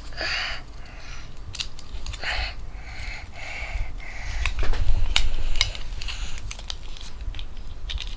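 Light clicks and knocks of wooden toy food pieces being handled, with several soft breathy sounds in between and low handling rumble.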